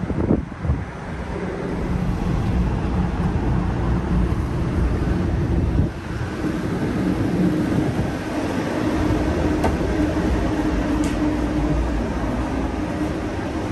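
Steady low rumble of street ambience at a streetcar stop, then, after a break about six seconds in, a Brookville Liberty streetcar's steady electrical hum over the rumble, with two light clicks near the end.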